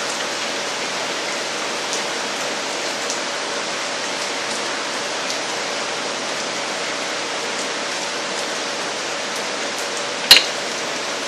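Steady hiss with a faint hum under it, and a single sharp click about ten seconds in, likely a tool or part knocking.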